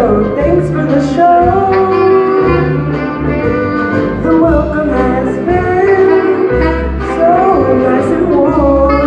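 A high school ensemble performing live music: a melody line of held notes over low bass notes that change every second or so.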